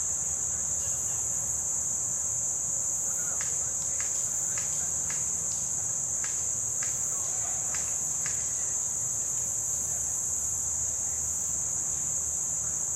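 Steady high-pitched drone of an insect chorus, crickets or similar. About a dozen sharp clicks come irregularly through the middle.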